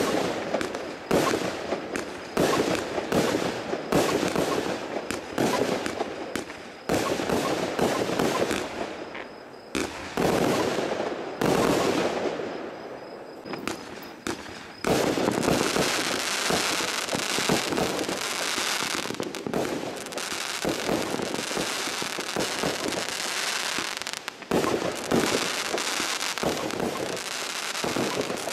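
Zena Kracherblitz firework cake firing shot after shot, each burst breaking into crackling. Shots come about once a second at first and thin out for a few seconds. Past the halfway point they merge into a dense, continuous crackle, with a few sharper bangs.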